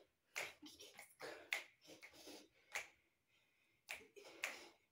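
Faint, scattered sharp taps, five or so at uneven intervals, from a person dancing.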